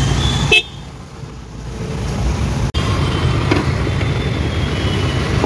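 Motor vehicle engine running with a steady low rumble. It drops away sharply about half a second in and builds back up over the next two seconds.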